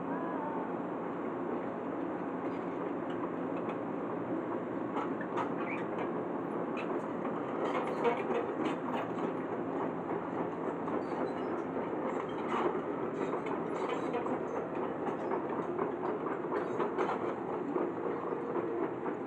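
Jonyang JY623E crawler excavator travelling on its steel tracks. The diesel engine runs steadily under a rattling clatter of track links and rollers, and the clanking grows denser from about five seconds in.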